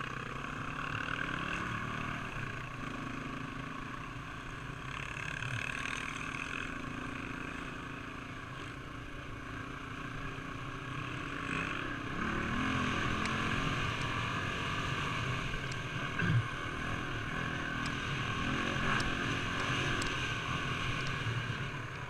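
Four-stroke single-cylinder Honda dirt bike engine running and revving up and down through the gears while riding a dirt trail, heard from a helmet-mounted camera. A sharp knock sounds once past the middle.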